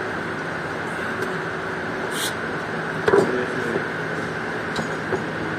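Steady machine drone, with a short hiss about two seconds in and a single louder metallic knock a second later.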